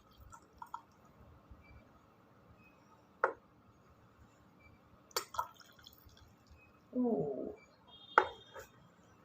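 Sipping hot honey water from a glass: a few faint clicks and slurp-like sounds, a short low sound around seven seconds in, and a sharp glass clink with a brief ring a little after eight seconds.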